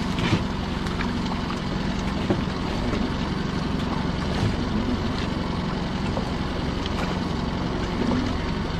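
A small boat's motor idling steadily, with a few light knocks as a lobster pot is handled on the gunwale.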